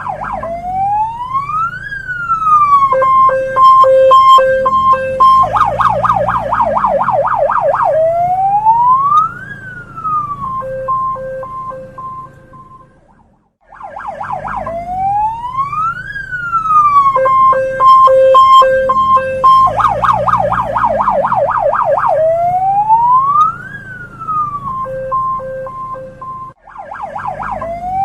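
Hong Kong police car electronic siren cycling through its tones. A slow wail rises and falls, then comes a run of short alternating high-low beeps, then a fast yelp of about four warbles a second, then more wail and beeps. The sequence cuts out briefly about halfway and starts over.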